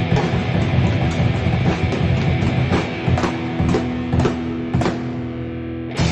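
Rock band playing an instrumental passage: sustained guitar chords over drum-kit hits, with a fresh chord struck at the very end.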